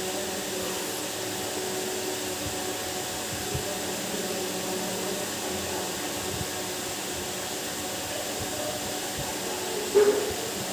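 Steady machine hum with a faint whir, like an electric motor running, throughout. A brief louder sound cuts in about ten seconds in.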